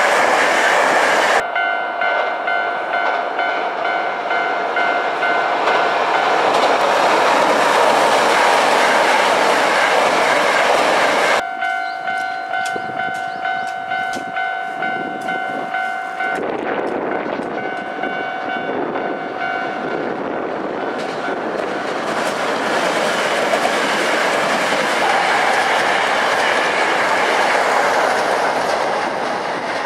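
Hankyu electric trains running across a steel girder railway bridge: steady wheel-on-rail noise with clickety-clack and a steady high hum through parts. The sound changes abruptly three times, about 1.5, 11.5 and 16.5 seconds in.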